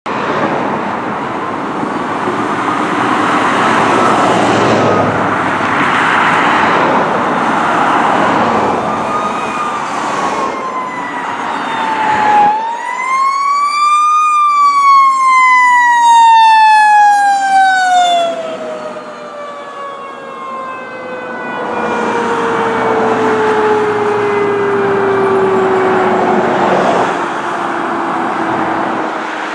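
Fire engine's Federal Q mechanical siren and the passing truck. At first the truck's engine and road noise are loudest, with the siren faint under them. About twelve seconds in the siren winds up to a loud wail, then coasts down in one long falling tone that is still sinking as the truck's engine and tyres pass by.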